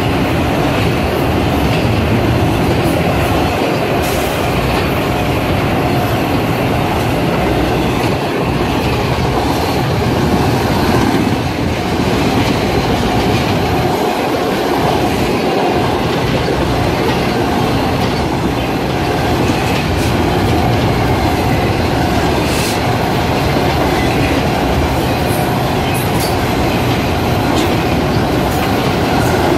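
Intermodal freight train of truck trailers on flatcars rolling past close by: a steady loud rumble and clatter of steel wheels on the rails, with a few sharp clanks.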